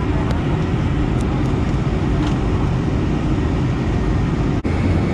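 Steady cabin noise of an airliner descending on approach: the underwing jet engine and rushing airflow, heard from inside the cabin at a window seat. There is one brief, sudden dropout about four and a half seconds in.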